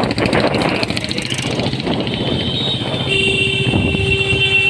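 Motorcycle engine running on the move in street traffic, with a vehicle horn sounding one steady held note from about three seconds in.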